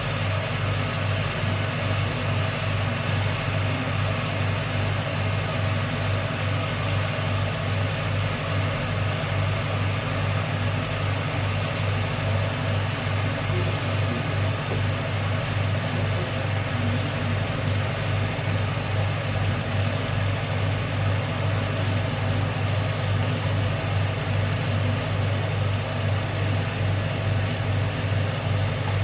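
A steady, low machine hum, unchanging throughout, with a strong deep tone near 100 Hz and a fainter even haze above it.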